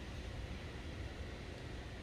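Steady seaside ambience: an even hiss of sea water with a low rumble underneath and no distinct events.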